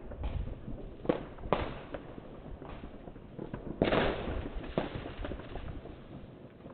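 Fireworks going off in the distance: several separate sharp bangs and pops, with a louder, denser cluster about four seconds in, over a low rumble.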